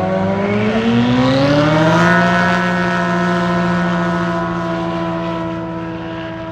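Light single-engine bush planes' piston engines and propellers going to full throttle for a short takeoff run. The engine note rises steeply over the first two seconds, then holds steady and slowly fades as the planes race away and lift off.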